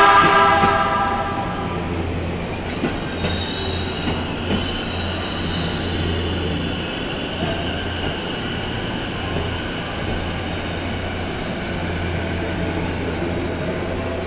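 JR East E257 series electric train sounding its electric horn, a loud pitched blast that fades within about a second and a half. The train then runs slowly in along the platform, with a steady low rumble, high steady whines, a few clicks and wheel squeal as it comes to a stop.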